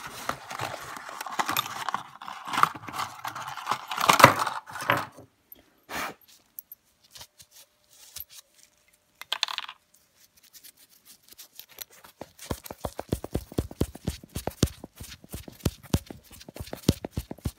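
Hand tools and metal parts of a heli-coil thread repair kit being handled: rustling and clinking for the first few seconds, a mostly quiet stretch with an odd click, then a run of quick, regular clicks over the last five seconds.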